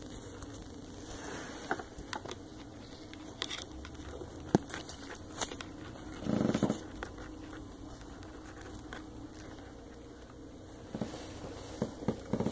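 Scattered light clicks, taps and scratches of a hamster moving about a wooden toy set, with a brief louder rubbing noise about six seconds in.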